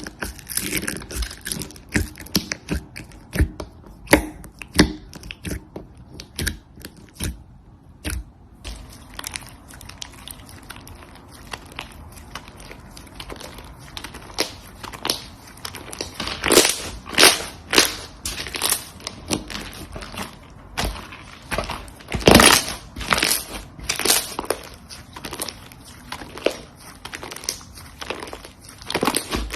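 Slime being squished and poked by hand, giving irregular sharp pops and crackling clicks, denser and louder in the second half.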